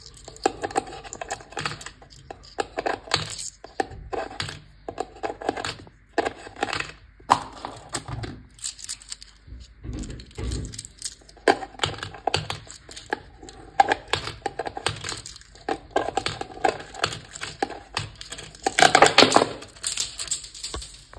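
Coins dropped one after another through the slot of a wooden money box, each landing with a short clink, with a quicker, louder run of clinks near the end.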